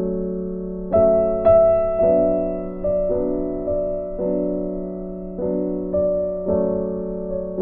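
Background piano music: a slow melody of single notes and chords, struck about once a second, each ringing and fading.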